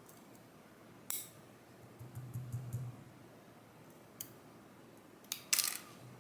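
Small metal lock wafers and parts clicking and clinking as a Dierre New Power wafer/slider lock is disassembled: a few sharp clicks, the loudest a little before the end.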